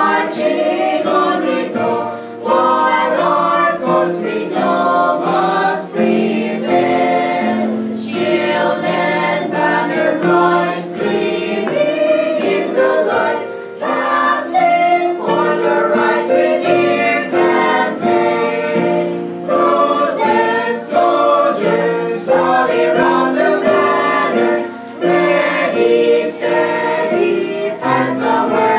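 Small mixed choir of men and women singing a hymn in harmony, in phrases with short pauses for breath between them.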